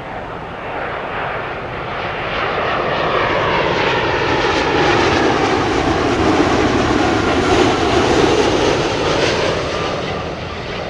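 Boeing 777-200 twin-engine jet flying past on landing approach. Its engine noise builds, peaks a little past the middle and fades away as it goes by.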